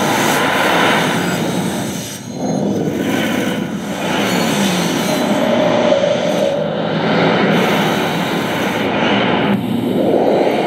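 Cinematic sound-effects track with no music: layered whooshes, wind and rumbling transitions that change every couple of seconds, with a falling sweep about three to four seconds in and a rising sweep near the end.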